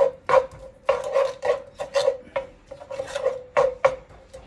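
Slotted wooden spatula scraping across a nonstick frying pan, stirring diced onion and garlic in oil: quick, irregular scrapes, about two or three a second.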